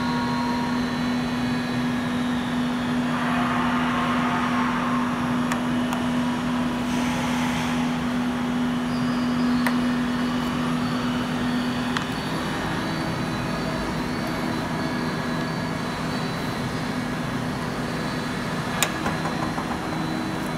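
A steady mechanical hum whose pitch steps up slightly about twelve seconds in, with a few sharp clicks as the metal locking fuel cap and its key are worked.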